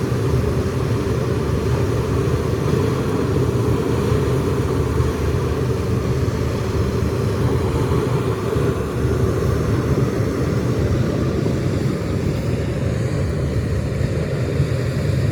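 Heavy diesel engine of an Ashok Leyland tipper truck running steadily at constant speed while the truck tips out its load of soil.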